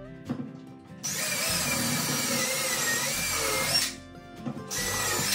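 Cordless drill running for about three seconds, its whine wavering as the trigger is worked, then a shorter second run near the end, over background music.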